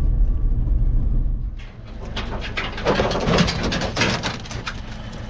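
Low vehicle rumble from a moving truck for about a second and a half, then a run of metallic clicks and rattles as the dog box on the back of a ute is opened and a hunting dog gets out onto the tray.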